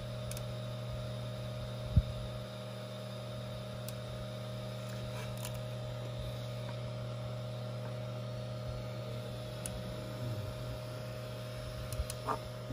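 Steady electrical hum, a low drone with a fainter higher whine above it. There is one soft knock about two seconds in and a few light clicks near the end.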